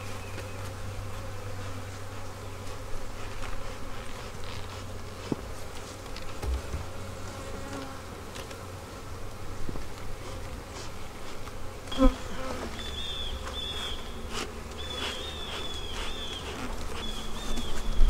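Honeybees buzzing steadily in a dense swarm around an open hive, an agitated colony that is not happy at being disturbed. A single knock comes about two-thirds in, followed by short high chirps repeated several times.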